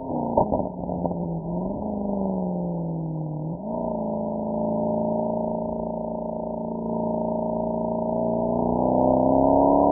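Mercedes-AMG SL63's V8 engine and exhaust: the revs drop sharply at the start with a few short pops, fall and rise again, jump up quickly about three and a half seconds in, hold steady, then climb near the end as the car accelerates.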